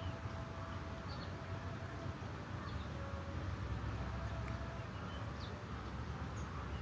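Outdoor background: a steady low rumble with faint scattered bird chirps, and a faint held tone now and then.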